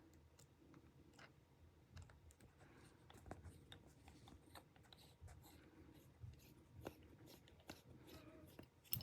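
Near silence with faint, irregular clicks and ticks of a small pentalobe screwdriver turning the phone's two bottom screws.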